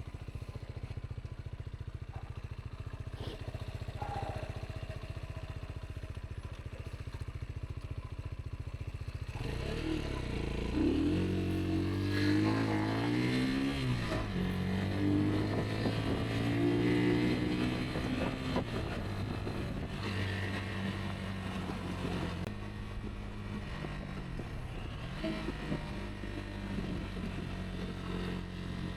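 Rieju Aventura 125's single-cylinder engine running at low revs, then about nine seconds in it gets louder and revs up and down, its pitch rising and falling with the throttle as the bike rides.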